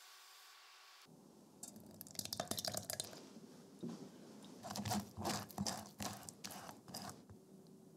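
Silicone spatula pressing and scraping raspberry purée through a fine metal mesh sieve: a run of short, wet scraping strokes, loudest about five seconds in. Before them, for about a second, a faint steady hiss from the sauce on the hob.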